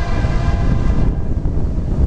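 Florida East Coast diesel locomotive's air horn sounding as the train approaches, its chord cutting off about a second in, over a low rumble from the train and wind on the microphone.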